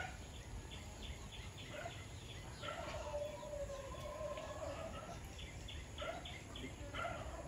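Domestic poultry calling: two runs of quick, short calls, about two and a half seconds in and again about six seconds in, faint against a steady background.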